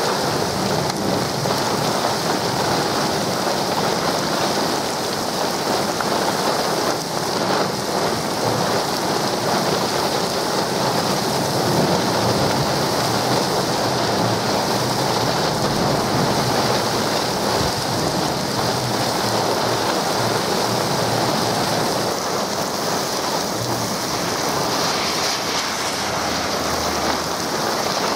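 Heavy thunderstorm rain pouring down, a dense steady hiss with a low rumble underneath from the storm gusts. Near the end a car drives past on the wet road.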